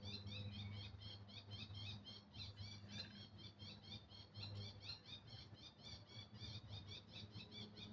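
A bird calling with a fast, steady series of short, high, repeated notes, about six a second, over a faint low hum.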